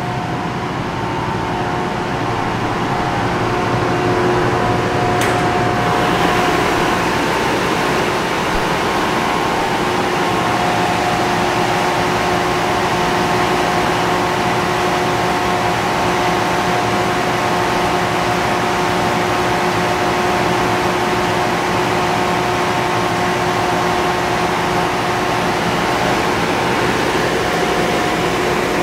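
Viet three-head 53-inch wide belt sander running with its sanding heads and feed conveyor switched on: a loud, steady machine whir with a constant hum. A single brief click about five seconds in.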